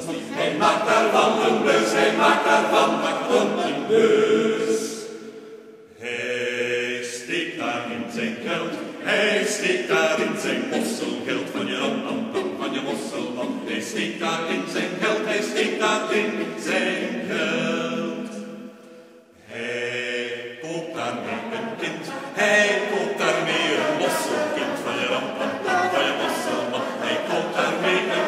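Men's choir singing a cappella in several parts, conducted. The singing dies away briefly between phrases twice, about six seconds in and again about nineteen seconds in.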